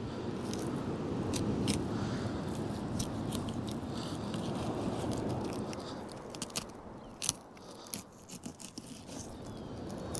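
A knife blade scraping and crunching through a black bream's flesh and along its backbone while filleting, with scattered sharp clicks as it catches on the bones. Behind it runs a low rushing noise that swells and eases off.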